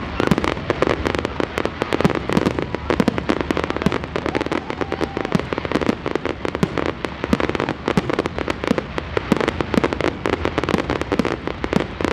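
Fireworks display at its height: aerial shells bursting in a rapid, continuous barrage of bangs, many a second, mixed with crackling.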